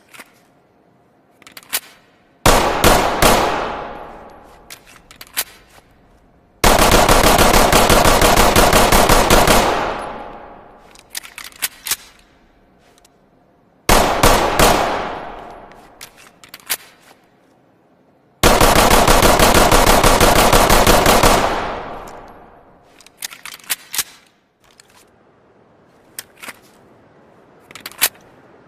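Gunfire sound effect of the '500 handgun': four bouts of very rapid shots, two short and two lasting about three seconds each, each dying away in a trailing echo. Sharp metallic clicks come in between the bouts.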